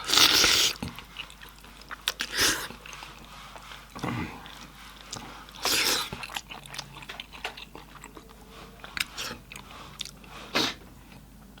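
Mouth-close chewing and biting of cooked goat head meat, with many small wet clicks and four louder bites spread through.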